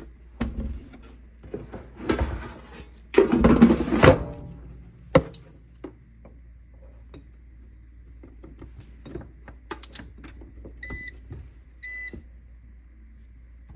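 A PowerXL air fryer's basket clattering and knocking as it is handled and pushed home, loudest about three seconds in. Near the end its control panel gives three short electronic beeps as it is set.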